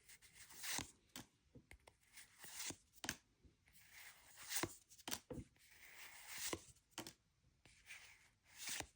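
Pokémon trading cards being slid and flipped one by one in the hand: faint, irregular rustles and soft taps of card stock.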